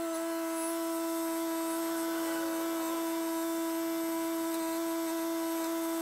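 Kubota compact tractor running at a steady throttle, heard as an even, unchanging machine hum.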